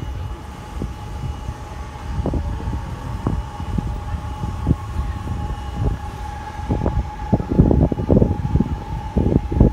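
Wind buffeting the microphone, gusting harder in the last few seconds, over a steady thin distant whine.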